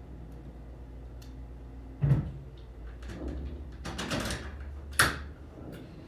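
Two sharp knocks, about two and about five seconds in, with rustling noise between them, over a low steady rumble.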